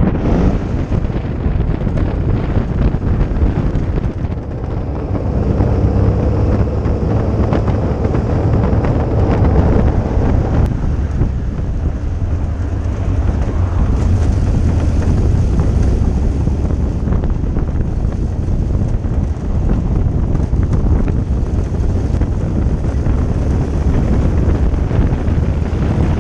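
Homemade twin-engine car driving along a road: engine and road rumble heavily buffeted by wind noise on the microphone, with the engine note showing more clearly for a few seconds near the middle.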